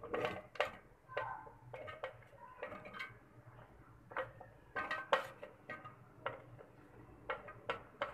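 Chopped onion and garlic pieces dropped and pushed off a cutting board into a stainless steel grinder jar: irregular light taps and clinks against the metal, a dozen or so, some with a brief ring.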